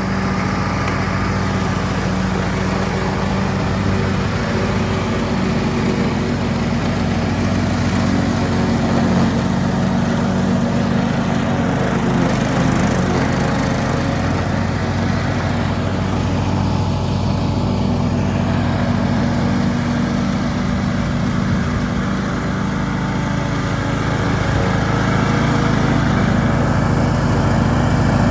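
A small engine running steadily, its note shifting slightly now and then.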